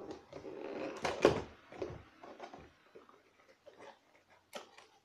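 A small cardboard carton being handled and opened: rustling and scraping of the flaps, a sharp knock about a second in, then scattered light clicks and scrapes as the contents are reached for.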